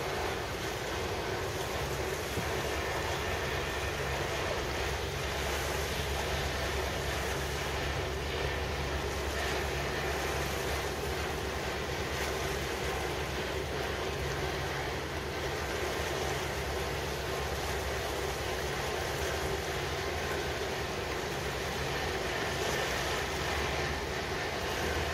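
Harbour ambience: a steady low engine rumble with an even wash of wind and water noise over it.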